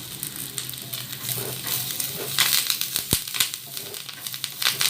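Curry leaves added to a pan of nearly dry fried chicken, crackling and sizzling, with a spoon stirring and scraping through them and one sharp knock against the pan a little after three seconds.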